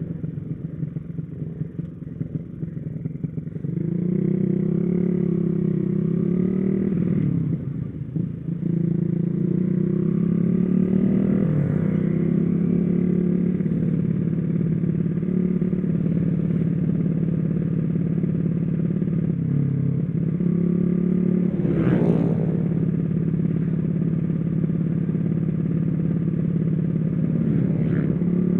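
Small four-stroke motorcycle engine, freshly rebuilt, pulling hard and held at high, steady revs while riding. The engine note picks up a few seconds in, then dips briefly twice as the throttle is eased or a gear is changed.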